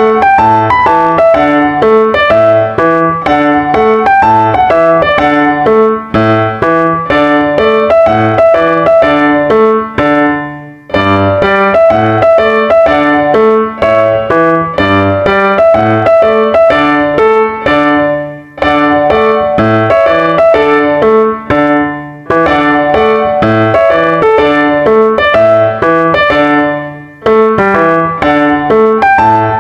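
Background piano music: a steady run of notes, with brief pauses between phrases.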